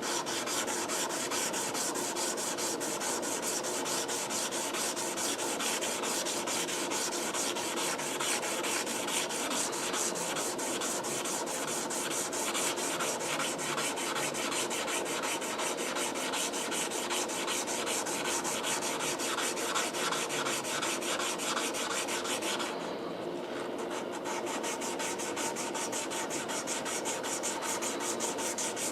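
Hand sanding a forged leaf-spring steel knife blade with 220-grit sandpaper wrapped over a wooden stick and wetted with Windex: quick, even back-and-forth rubbing strokes, which ease off briefly about 23 seconds in before carrying on.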